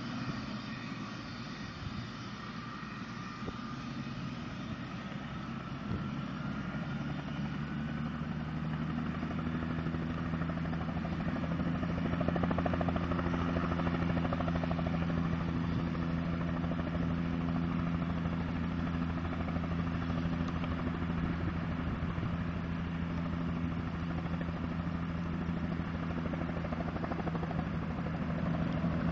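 Helicopter running, growing louder over the first dozen seconds and then holding steady, with a faint whine rising in pitch early on.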